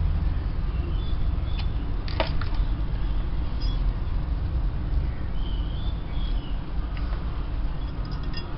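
Steady low rumble of outdoor background noise, with a few faint high chirps and a sharp click about two seconds in.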